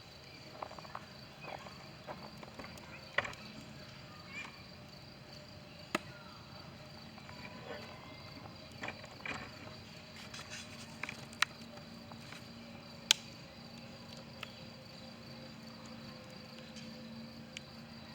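Insects or crickets chirring steadily, with a dozen or so sharp clicks and knocks scattered through; the loudest come about 3, 6, 11 and 13 seconds in.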